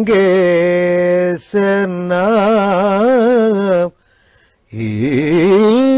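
A man's voice singing a Kathakali padam in raga Hindolam, unaccompanied, with heavily ornamented, wavering notes. A phrase breaks off briefly about a second and a half in, and another ends about four seconds in. After a short silence, a new phrase slides up into the next line.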